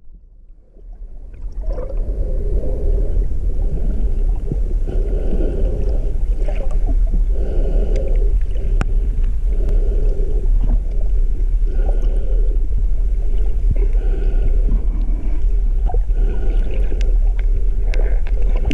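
Pilot whale calls heard underwater: short pitched calls repeating about once a second, with scattered clicks, over a steady low rumble of water. The sound swells up from faint over the first two seconds.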